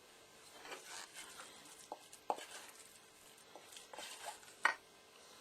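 A spoon scraping and dabbing thick chocolate-and-cream mixture onto a cake base: soft wet squelches and scrapes with a few light clicks of the spoon.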